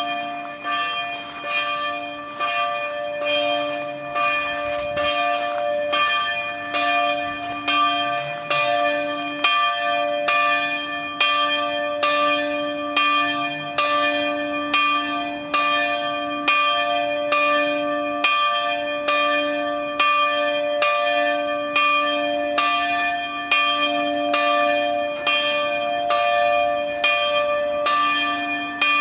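Church bell being swung and rung, a steady run of strokes about one to two a second, each ringing on into the next so the tones overlap in a continuous peal.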